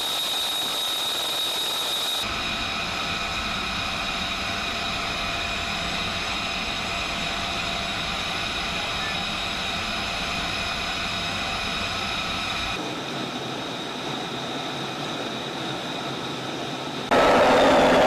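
Steady whine and rush of jet aircraft engines, with several high tones held over a hiss. The sound changes abruptly about 2 seconds and about 13 seconds in, and near the end it jumps louder into a rush of jet noise whose highest tone dips slightly in pitch.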